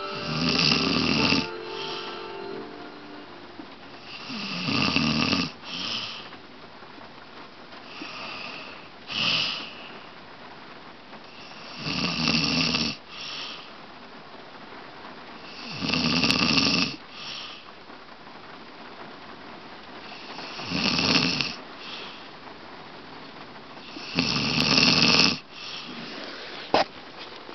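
An elderly woman snoring in her sleep: seven snores about every four seconds, each about a second long, several with a short second puff just after. A sharp click near the end.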